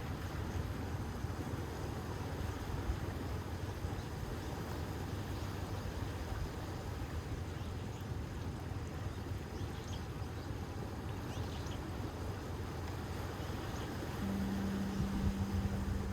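Seaside wind and surf: a steady low rumble of waves and wind on the microphone. A single low steady tone comes in near the end.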